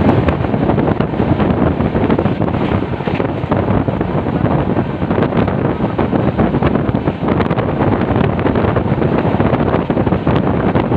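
Express train running at speed, heard from an open coach window: wind buffeting the microphone over the steady rumble of wheels on the track, with faint scattered ticks.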